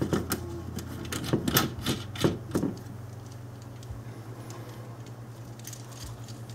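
Quick metal clicks and taps as a ham-stick antenna and its screw-on adapter are handled and taken off the top of a steel ammo-can radio go box, clustered in the first two or three seconds. After that only a low steady hum remains.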